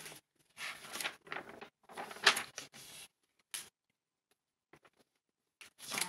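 Paper rustling as planner pages are handled and turned, in several short bursts, then a pause and more rustling near the end.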